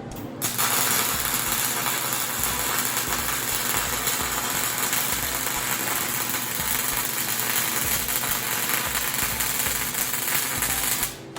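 Welding arc running as one steady stretch of about ten seconds while a bead is laid, starting about half a second in and cutting off sharply near the end.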